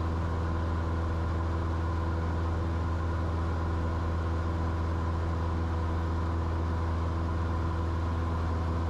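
Cessna 172 Skyhawk's piston engine and propeller droning steadily in the cockpit under climb power, one even, unchanging hum.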